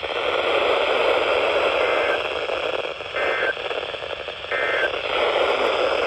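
Midland emergency weather radio hissing static on a weather-band channel with no broadcast coming through, with three short electronic beeps about a second apart in the middle.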